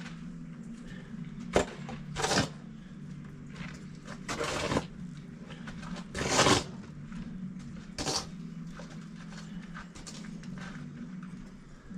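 Snow shovel scraping and chopping through snow, about six strokes one to two seconds apart, some brief and some drawn out for about half a second, over a steady low hum.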